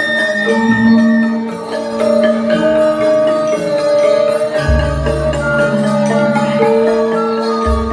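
Javanese gamelan ensemble playing in pelog tuning: bronze metallophones ring out interlocking melody, and deep gong strokes sound twice, about halfway through and near the end.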